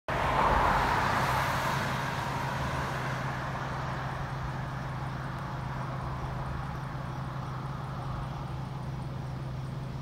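A car passing on the street, loudest just after the start and fading away over the next few seconds, leaving a steady low hum.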